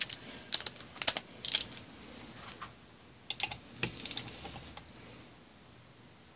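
Click-type torque wrench clicking in two short runs of sharp metallic clicks, the second run about three and a half seconds in, as it is worked on the cylinder head fasteners of a Honda Rebel 250 engine.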